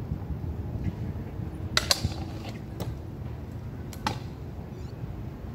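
Kick scooter wheels rolling on concrete with a low steady rumble, broken by a few sharp metallic clacks from the scooter: two close together about two seconds in and one about four seconds in.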